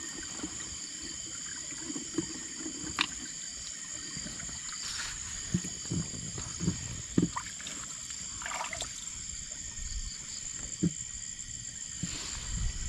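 Water sloshing and splashing at scattered moments, as from wading through a shallow muddy wallow, over a steady high chirring of night insects.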